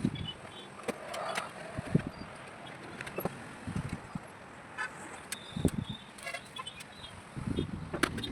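Scattered clicks and knocks of screws and a screwdriver as a motherboard is screwed onto its standoffs in a metal PC cabinet, with low thuds of handling, over a steady background hiss.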